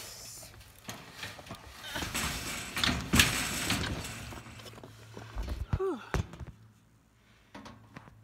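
Large cardboard-boxed water heater being shoved and dragged, scraping with knocks, the loudest about three seconds in. A short strained vocal grunt of effort comes about six seconds in.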